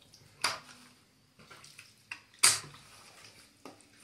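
Wet squelching and slapping of raw chicken pieces being worked by hand in marinade in a metal baking tray. There are two sharper wet slaps, about half a second and two and a half seconds in, with softer squishes between.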